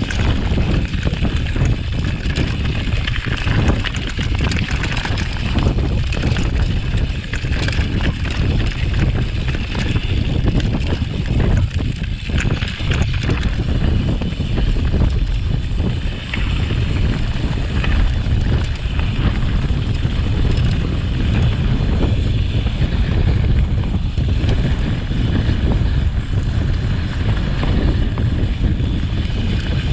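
Wind buffeting the camera's microphone during a fast mountain-bike descent, a steady heavy rumble, with the tyres and bike rattling and knocking over rough mountain trail.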